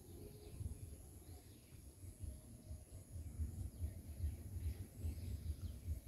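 Outdoor country ambience: wind rumbling irregularly on the microphone, with a faint steady high-pitched insect drone and a few faint bird chirps.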